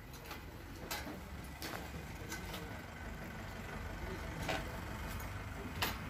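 A handful of sharp metal clicks and clinks from hand tools working on a motorcycle engine, the loudest near the end, over a low steady rumble.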